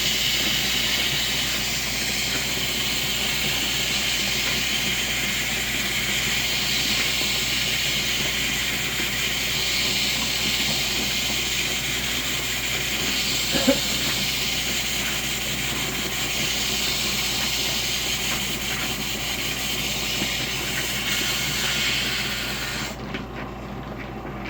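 Lap grinder running with a piece of jade held to its abrasive, a steady loud grinding hiss, with a single knock about halfway through. Near the end the grinding hiss cuts off suddenly, leaving a quieter low noise.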